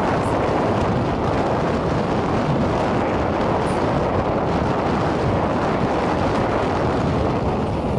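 Steady rush of wind and engine noise from a moving motorbike, even throughout with no changes.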